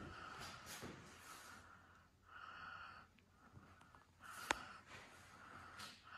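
Quiet room with soft breaths close to the microphone and a single sharp click about four and a half seconds in.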